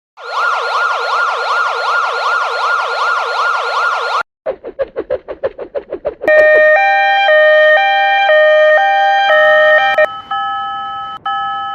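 Electronic siren sound effect warbling rapidly up and down, about five sweeps a second, for about four seconds. It cuts off into a quick run of short pulses, and then a melody of sustained bell-like chime tones begins about six seconds in.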